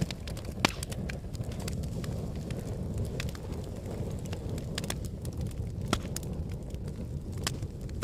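Wood and paper burning in open flame: a steady low rush with constant crackling. Two sharper pops stand out, one about half a second in and one near six seconds.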